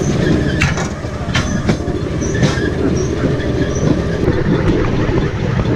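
Bamboo train (norry) running along the rails: a steady motor-and-wheel rumble, with sharp clacks at uneven intervals as the wheels cross the rail joints.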